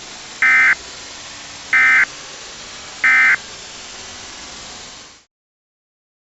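EAS/SAME digital data bursts: three short, identical squawks about 1.3 seconds apart, the End-of-Message code that closes an emergency alert, over a steady static hiss that cuts off about five seconds in.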